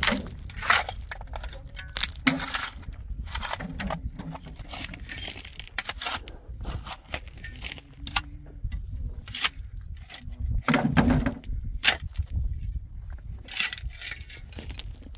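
Irregular cracks, snaps and knocks of building materials being handled and broken by hand, over a steady low rumble, with the loudest cluster about eleven seconds in.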